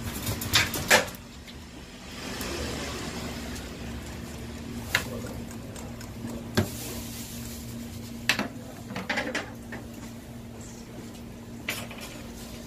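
Handling noises as a fish is worked on a plastic cutting board: about eight scattered sharp knocks and clicks, the loudest about a second in, over a steady low hum.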